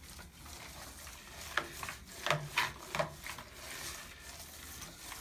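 Trowel-like smoothing tool scraping across wet paint on a door, several quick short strokes in a cluster about a second and a half to three seconds in, blending out the criss-cross brushed pearl glaze.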